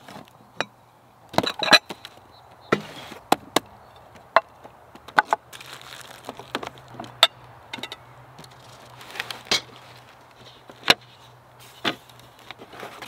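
Tableware and a bottle being packed into a woven wood-splint picnic basket: irregular knocks and clunks as things are set down and the basket's wooden lid is opened and shut.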